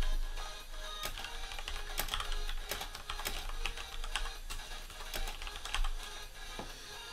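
Background music, with irregular light clicks and taps over it.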